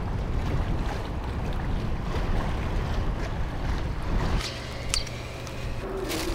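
Wind rumbling on the microphone with sea wash by the shore. About four seconds in it drops to a quieter background with one sharp click.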